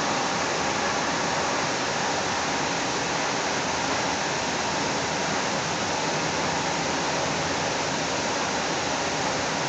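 Steady rushing noise of a Link light rail car running at speed, heard from inside the car: wheels on the rails and the car's running noise, even throughout with no distinct knocks or announcements.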